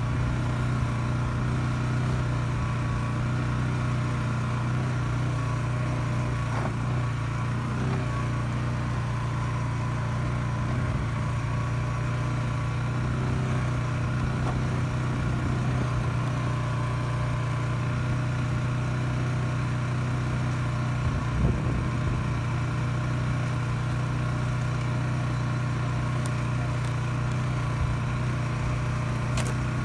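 Polaris Sportsman 570 ATV's single-cylinder engine running steadily as the quad rolls along a rough grass trail at about 15 mph, with one brief thump about two-thirds of the way through.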